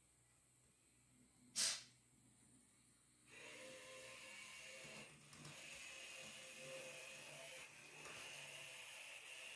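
A single sharp click, then from about three seconds in a small electric model-train locomotive motor running, a steady faint whir with hiss.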